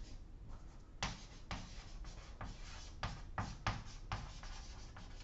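Chalk writing on a blackboard: a quick run of short scratching strokes and taps as letters are formed, starting about a second in and lasting about three seconds.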